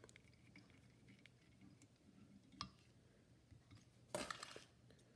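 Near silence with faint light clicks and ticks of a whip-finish tool and thread being worked at the head of a fly in the vise. There is a short breathy rustle about four seconds in.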